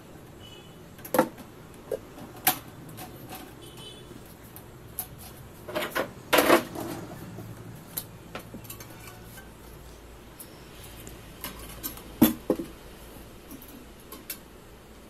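Clicks and knocks of plastic and metal pedestal-fan parts being handled as the blade and guard are worked loose. The knocks are scattered, with a cluster of louder knocks about six seconds in and one sharp knock about twelve seconds in.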